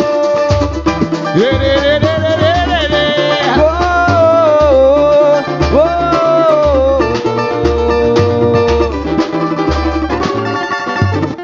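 Samba band playing an instrumental passage: a low drum beat about once a second and quick hand-percussion strokes, with plucked strings, under a sustained melody line that glides between notes.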